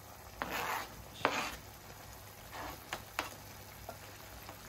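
Chopped red onions sliding off a plastic cutting board into a pan of hot oil and goat meat: two short rustling sizzles as they tumble in, then a fainter one and a few light clicks.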